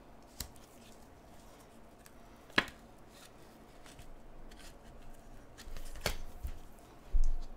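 A cardboard trading card being slid into a semi-rigid plastic card holder by gloved hands: faint rustling with a few sharp clicks, the loudest about two and a half and six seconds in, and a low thump near the end.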